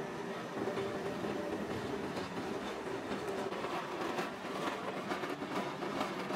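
Machinery of a continuous biochar pyrolysis plant running, a steady mechanical hum with irregular rattling clicks.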